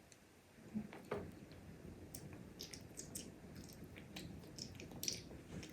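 Faint, scattered wet clicks and smacks of a child chewing food close to the microphone.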